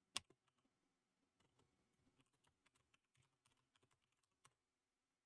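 Faint computer keyboard typing: one sharp keystroke just after the start, then a run of quiet, irregular key presses, ending with a firmer keystroke.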